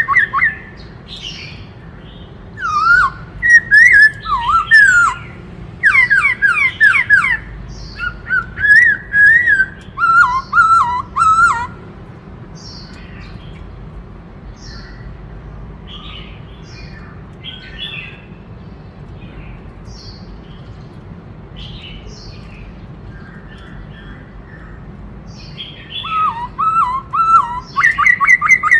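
Black-throated laughingthrush (khướu bạc má) singing loud whistled phrases of quick up-and-down notes. It drops to fainter calls for the middle stretch, then sings loudly again near the end, over a steady low hum.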